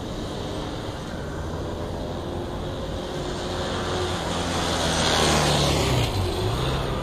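Honda Rebel CMX250 motorcycle approaching and riding past. Its engine grows louder to a peak about five seconds in, then drops in pitch as it passes and fades away.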